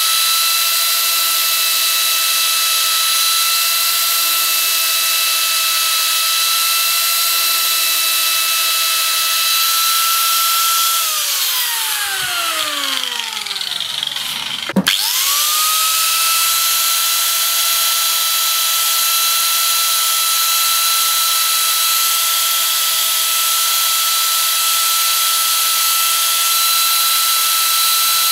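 Arbortech Mini Pro power carver running with a steady high whine as its small cutter disc works into wood. About eleven seconds in it is switched off and winds down, falling in pitch. A few seconds later it starts again with a click and spins up to the same whine.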